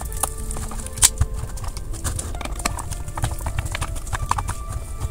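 Irregular small clicks and knocks of a screwdriver and screws on the casing of an Xbox console being taken apart, with one sharper knock about a second in.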